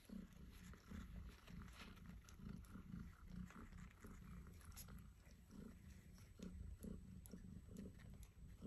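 Grey British Shorthair mother cat purring faintly as she nurses her newborn kittens: a low, pulsing rumble, with a few small clicks over it.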